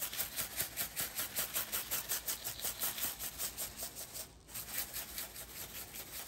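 A shaker of garlic-pepper seasoning salt shaken quickly over a beef roast, the granules rattling in a steady rhythm of about five shakes a second, with a brief pause a little after four seconds in.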